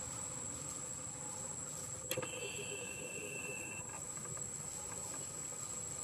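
Steady high-pitched insect drone over a hissy outdoor background. About two seconds in there is a click, then a second, lower steady tone that cuts off after about a second and a half.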